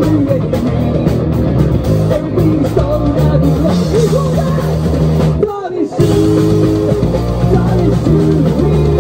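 Rock band playing live: electric guitar, bass and drums, with singing. The sound drops briefly a little past halfway, then carries on.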